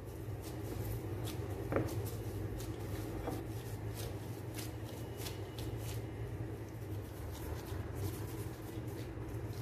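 Hands in plastic gloves kneading and rolling risen whole-wheat bhatura dough in a glass bowl and onto a wooden board: irregular soft rustles and small ticks, over a steady low hum.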